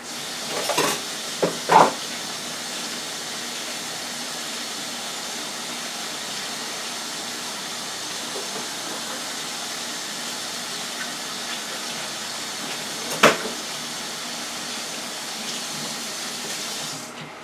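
Kitchen sink tap running in a steady stream while hands are washed under it, with a few knocks as it is turned on and one more knock partway through; the water cuts off suddenly near the end.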